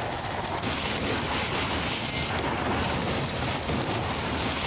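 Steady rushing background noise with no clear events.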